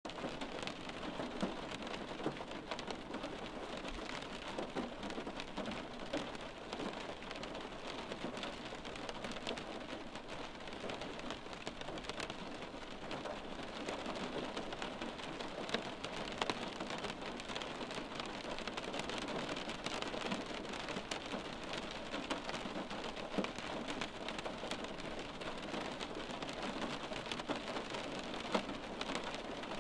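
Steady rain, an even hiss with scattered sharp ticks of individual drops.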